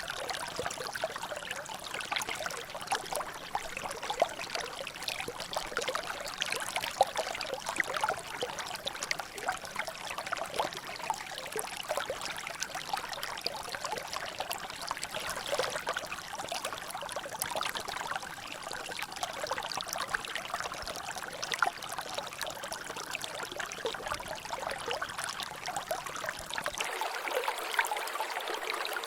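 Water trickling and dripping in a natural drainage channel: a steady, dense patter of small drops and splashes. Near the end the faint low rumble underneath drops away.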